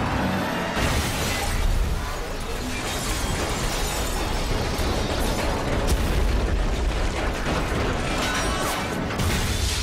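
Movie sound effects of two semi-trailer trucks colliding head-on: a long, dense crash with shattering and debris, sharp hits early on and a heavy low rumble in the middle, over orchestral film music.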